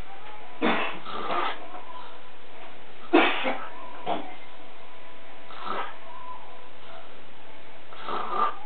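Snoring in sleep: about six separate rasping snores at uneven intervals a second or more apart. The one about three seconds in is the loudest.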